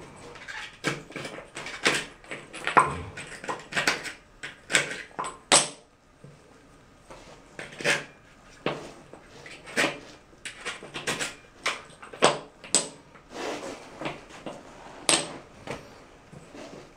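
Small mosaic floor tiles clicking and knocking against one another and the floor as they are fitted and pressed into place by hand: irregular sharp taps, with a short lull about six seconds in.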